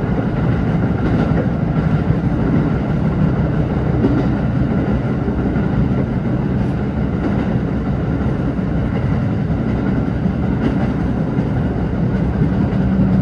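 Chichibu Railway express electric train running at speed, heard from inside the carriage: a steady rumble of wheels on rail with a few faint knocks.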